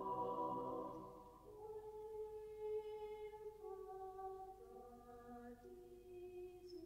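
Five-part (SSATB) school madrigal choir singing softly. A full chord dies away about a second in, leaving a quiet line of one or two voices moving in held notes that step up and down.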